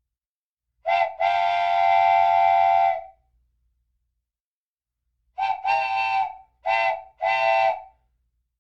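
Train whistle blowing: a brief toot and one long blast, then after a pause a run of four shorter blasts.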